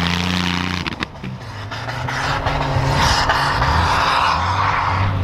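Jeep Comanche pickup's engine revving hard as it drives through deep powder snow with the tyres spinning. The engine note drops about a second in, then climbs again under a rising hiss of spraying snow.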